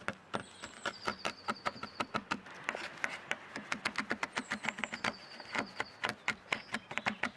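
Kitchen knife chopping chocolate with nuts on a wooden cutting board: quick repeated knocks of the blade on the wood, about four a second. Birds chirp faintly behind it.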